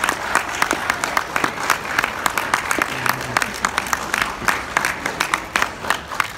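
Audience applauding, a dense patter of many hands clapping that begins to thin near the end, with a few voices in the crowd.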